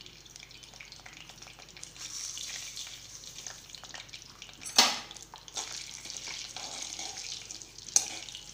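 Small pieces of edible gum (gond) sizzling in hot ghee in an aluminium kadhai as they fry and puff up, the hiss building about two seconds in. Two sharp knocks stand out, one about five seconds in and one near the end, as the ladle works the pan.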